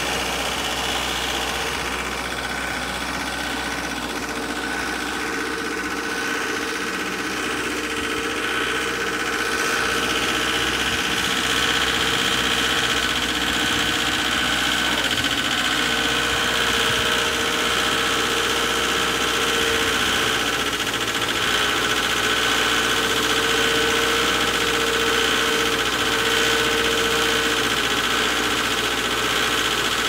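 Wacker Neuson ST45 skid steer's Perkins diesel engine in a runaway, running steadily on its own and pouring white smoke. The key cannot shut it off; the engine is feeding itself and will only stop if its air intake is blocked.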